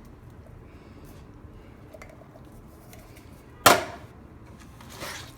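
One sharp clack of a utensil or container striking the cooking pot about three and a half seconds in, with a brief ring, over a faint steady background hiss.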